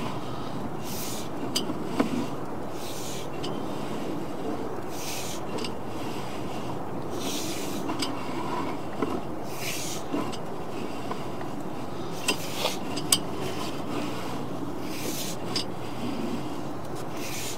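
Sewer inspection camera's push cable being fed into the line, rubbing and scraping in irregular short strokes about every one to two seconds, with a few light clicks.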